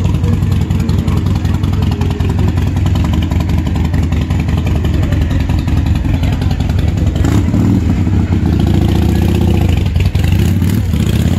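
Motorcycle engine running with a steady low rumble, as a cruiser motorcycle rolls slowly past close by; the sound fills out a little after the middle.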